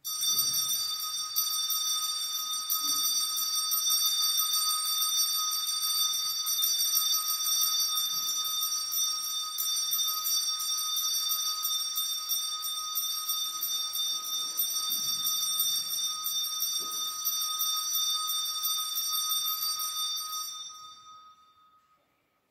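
Altar bells shaken continuously for the elevation of the chalice at the consecration of Mass. A steady, high, jingling ring that starts suddenly and dies away about twenty seconds in.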